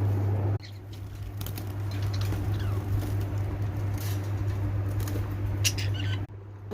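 Pet lovebirds giving short, high chirps and squeaks over a steady low hum, from about a second in until near the end.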